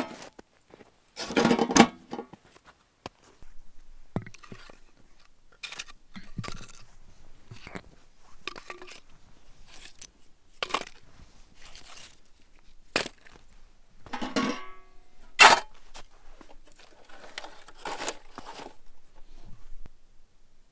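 Irregular crunches and knocks: boots crunching in deep snow and split wooden kindling being handled, in uneven bursts with the loudest about a second and a half in and again near three quarters of the way through.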